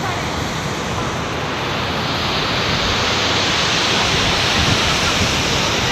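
Steady rush of falling water from a waterfall, a dense unbroken roar that grows a little brighter and louder about two seconds in.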